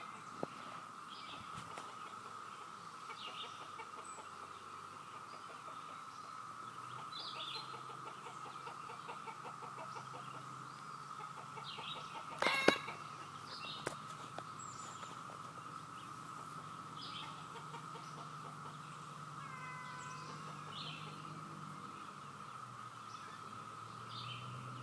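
Chorus of cicadas, one continuous high buzz, with short bird chirps scattered over it and one sharp knock about halfway through.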